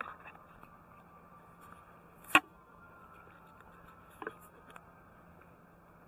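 Faint steady background noise broken by a few sharp clicks or knocks, one much louder than the rest a little over two seconds in and two fainter ones near the end.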